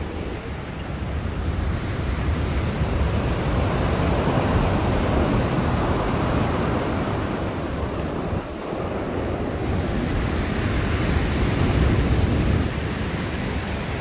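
Rough sea surf breaking on a pebble beach, a steady rushing that swells and eases, with wind buffeting the microphone.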